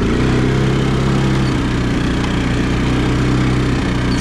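ATV engine running at low, steady revs while the quad is ridden slowly along a rough dirt track.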